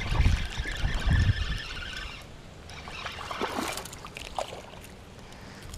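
A spinning reel winding in a hooked largemouth bass, with water splashing and dribbling as the fish is brought to the boat. Wind rumbles on the microphone for the first second or so.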